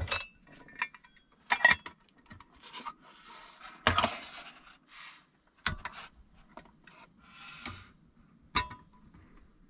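Stainless camping cookware being handled: a lid, a pot and a small gas burner clink, rattle and knock as the pot is set on the burner, with a dozen or so sharp metallic knocks among rustling. A faint steady hiss comes in near the end.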